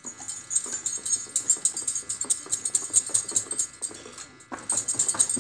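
Stainless-steel wire whisk beating flour into a thick yogurt batter in a glass bowl, its wires clicking against the glass in quick, uneven strokes, several a second. The strokes ease off briefly about four seconds in, then pick up again harder.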